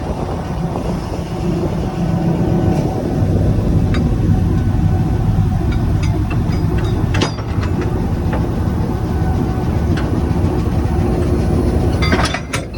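Railway train rolling with a steady low rumble. There is a sharp knock about seven seconds in and a quick cluster of knocks near the end.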